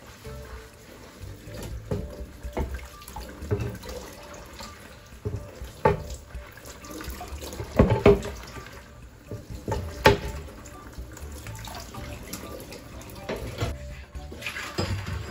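Tap water running and splashing into a stainless steel sink while a wooden chopping board is scrubbed with a sponge, with a few sharp knocks of the board against the sink, loudest about eight and ten seconds in.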